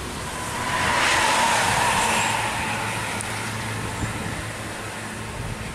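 A bus passing at speed on a rain-soaked road: the hiss of its tyres on the wet surface swells about a second in and fades away, with a slightly falling tone as it goes by. A low steady engine hum follows.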